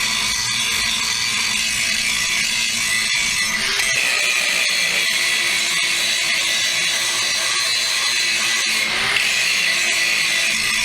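Harbor Freight angle grinder with a fresh grinding disc grinding a bevel into the steel of a broken plow moldboard piece, running steadily with a high whine. The tone shifts about four seconds in and again near nine seconds as the disc bears on the metal.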